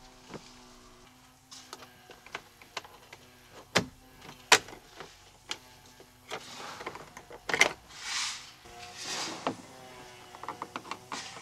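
Plastic trim clips on a Ram Promaster's door panel clicking and snapping as the panel is pried loose with a plastic trim tool, two sharp snaps about four seconds in the loudest, then short scrapes of plastic against plastic. Background music plays faintly underneath.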